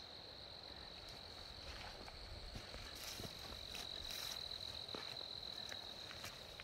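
Faint, steady, high-pitched insect song, like crickets, held on one pitch throughout, with a few soft taps scattered through it.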